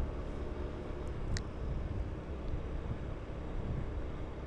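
Honda Beat scooter's small single-cylinder engine running steadily on the move, heard as a steady low rumble of engine and road noise, with one brief high chirp about a second and a half in.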